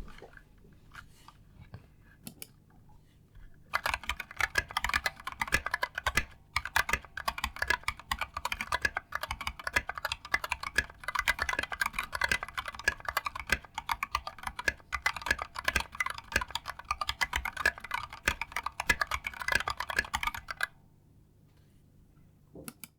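Mechanical keyboard with linear switches (Turquoise Tealios or Gateron Yellow) being typed on fast and continuously. The typing starts about four seconds in, pauses briefly about a third of the way through, and stops a couple of seconds before the end.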